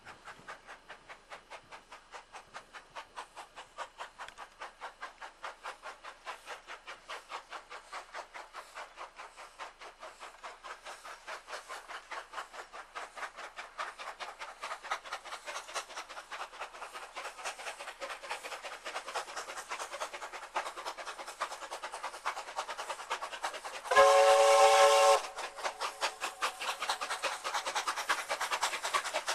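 Steam locomotive's exhaust beating at a steady rhythm, about two to three beats a second, growing louder as it approaches. Near the end it gives one blast of its chime whistle, a little over a second long and the loudest sound.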